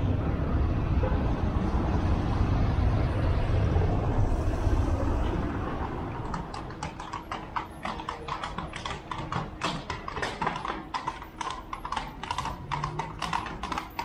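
A low rumble fades out over the first five seconds. About six seconds in, a horse's hooves start clip-clopping, about four sharp clops a second.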